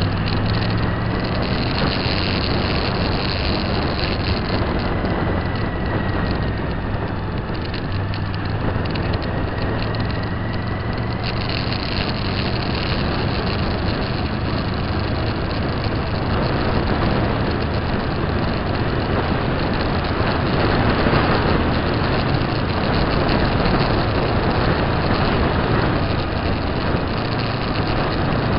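Engine of a moving road vehicle running steadily, mixed with road and wind noise on the vehicle-mounted microphone; the noise grows somewhat louder about two-thirds of the way through.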